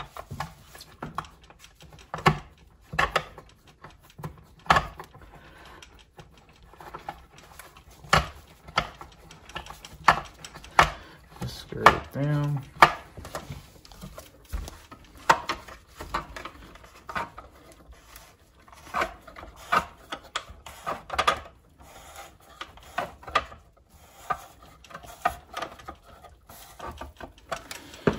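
Hard plastic motorcycle flyscreen and fairing parts handled on a workbench while two screws are started into them: irregular clicks, knocks and plastic rubbing, with a short low hum about halfway through.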